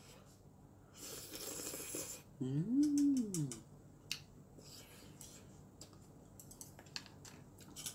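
Ramyeon noodles slurped in about a second in, then a closed-mouth "mmm" that rises and falls in pitch, followed by scattered crisp clicks of chewing on noodles and crunchy radish kimchi.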